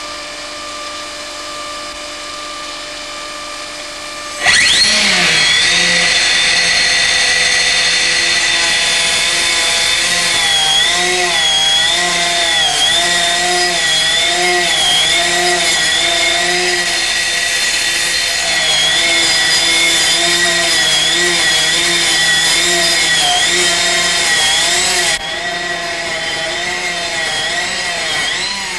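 Galaxy Oma System hydraulic stone cutter's disc cutting stone. It starts suddenly and loud about four seconds in, after a quieter steady stretch, then runs with a steady whine whose pitch wavers as the blade is loaded. Its level drops a few seconds before the end.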